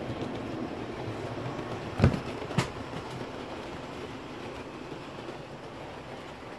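Model railway train running on the layout track: a steady rumble that grows slightly fainter in the second half, with two sharp clicks about two seconds in, half a second apart.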